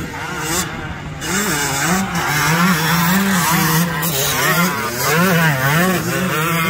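Two-stroke 125 cc single-cylinder engine of a 1989 Suzuki RM125 motocross bike under race throttle, its pitch climbing and dropping over and over as the throttle opens and closes.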